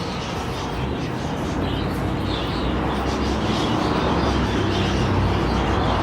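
Wild budgerigars in a flock, chattering continuously over a steady low rumble that slowly grows louder.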